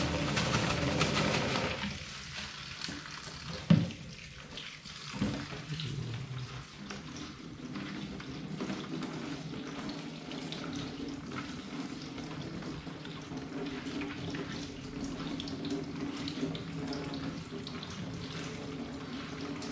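Kitchen tap running into a stainless-steel sink while bean sprouts are rinsed by hand under the stream. The water is louder for the first two seconds, then steadier and quieter, with two brief knocks a few seconds in.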